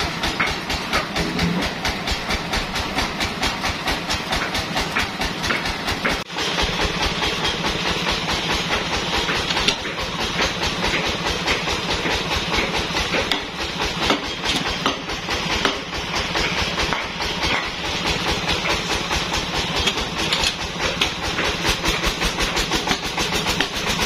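Band sawmill running steadily, a dense machine noise with a fast, even rattling pulse, dipping briefly about six seconds in.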